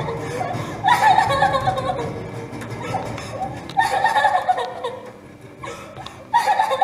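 Laughter in three short bursts, about a second in, about four seconds in and near the end.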